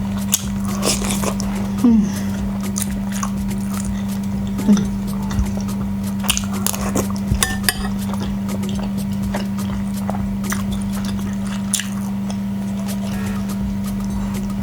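Close-up eating sounds of chapati and beef stew being chewed: scattered wet mouth clicks and smacks with an occasional clink of dishes, over a steady low hum.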